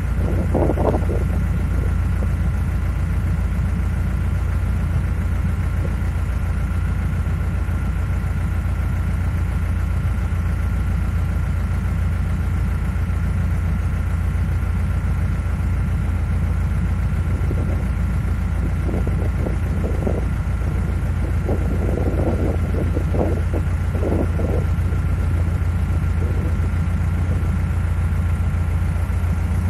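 Narrowboat engine running steadily while the boat cruises along the canal, a constant low drone.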